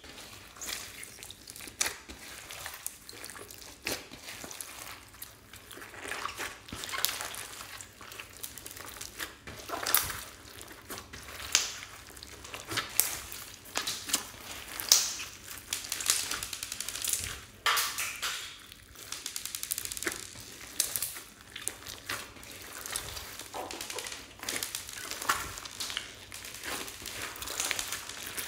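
Glossy slime mixed with foam beads being squeezed and kneaded by hand: wet squishing with irregular sticky crackles and sharp pops.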